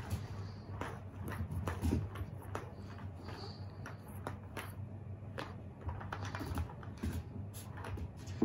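Scattered light clicks and taps, a few a second, from a puppy's play with a lint roller on a shag rug, over a low steady hum.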